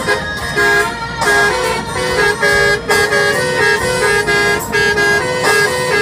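Indonesian bus 'telolet' multi-tone horn playing a quick tune: loud held notes that jump between a few fixed pitches every fraction of a second.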